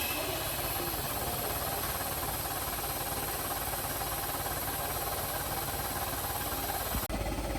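A steady loud hiss with a rough rattle under it, which cuts off suddenly about seven seconds in and gives way to a low steady engine hum.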